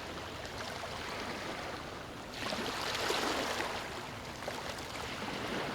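Rushing water, a steady wash that swells louder about two seconds in.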